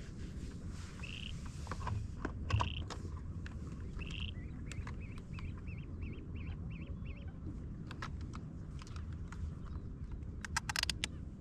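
Birds calling: a few single short calls, then a quick run of about ten repeated notes. Sharp clicks about two and a half seconds in and a cluster of them near the end, over a steady low rumble.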